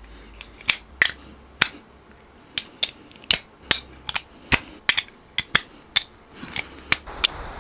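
Socket ratchet with an extension clicking as it drives in the small brake mounting bolts: sharp, separate clicks at an uneven pace, about two a second.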